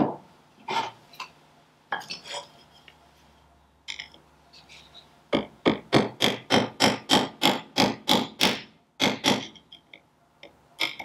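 Light tapping on metal, about four sharp taps a second, as the small key is worked out of the Ferguson TE20 generator's shaft; a few scattered clicks and knocks come first, and the tapping pauses briefly near the end before starting again.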